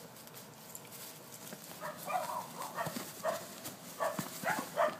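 A string of short pitched vocal sounds, several a second, starting about two seconds in over faint background noise.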